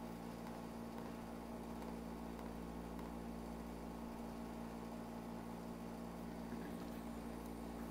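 Steady electrical hum with a faint constant hiss.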